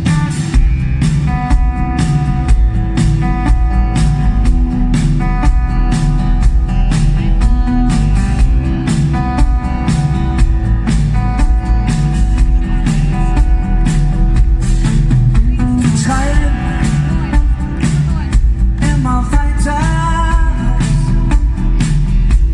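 Live pop band playing an instrumental passage of a song, with a steady drum beat and strong bass under sustained chords. Near the end a lead line with wavering, bending notes comes in.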